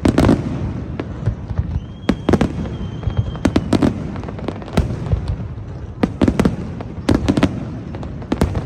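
Aerial fireworks going off: a rapid, irregular string of sharp bangs and cracks over a constant low rumble, with a brief thin whistle about two seconds in.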